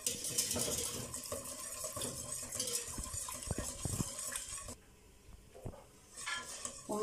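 Wire whisk beating milk into a flour-and-ghee roux for béchamel in a stainless steel pot, scraping and clinking against the pot's sides and bottom. The whisking stops for about a second and a half near the end, then starts again.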